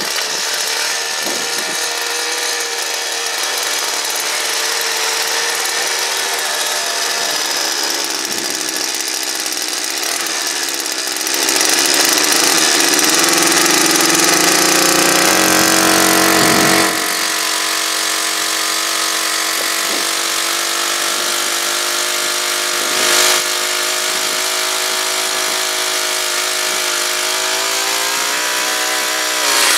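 Small two-stroke engine of a handheld earth-auger power head running steadily. It revs up for about five seconds in the middle, drops back to a lower speed, blips once briefly later and revs up again at the end.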